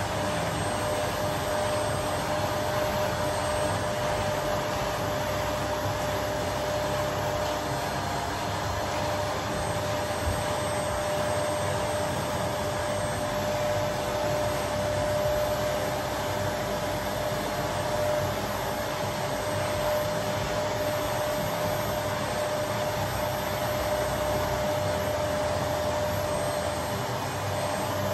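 Canister vacuum cleaner running steadily as its hose nozzle is worked over fabric sofa upholstery, a steady whine over the even rush of its air flow.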